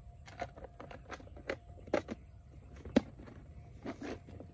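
Fishing tackle being handled: irregular small clicks and knocks, the sharpest about three seconds in.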